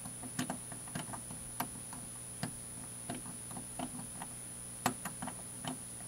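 Master Lock dial combination padlock being turned slowly with its shackle pulled up, giving faint, irregular clicks as the dial bumps past the numbers under tension; one louder click about five seconds in.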